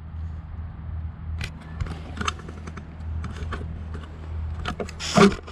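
Clicks and rustles from a handheld camera being handled against tent fabric, over a steady low hum, with one louder rustle about five seconds in.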